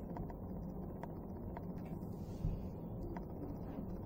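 Steady low room hum with a few faint clicks and a soft bump about two and a half seconds in: quiet handling noise from makeup tools.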